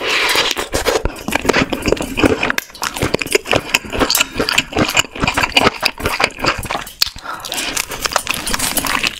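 A fast, irregular run of clicks and taps, like hooves or knocking on a hard surface.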